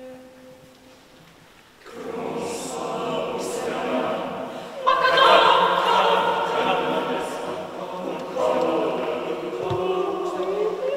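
Mixed choir singing, entering about two seconds in and growing louder a few seconds later. Before it, a faint steady note dies away just under a second in.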